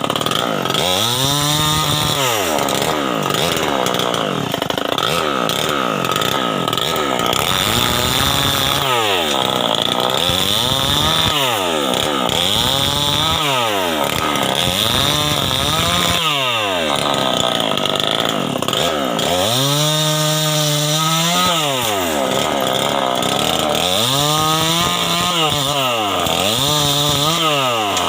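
Stihl 070 two-stroke chainsaw running hard in wood, its engine speed rising and falling over and over, about every two to three seconds.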